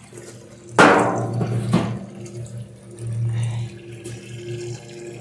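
Water running from a garden hose into a plastic bucket, with a steady low hum underneath. Two sudden louder sounds come about a second in and just under two seconds in.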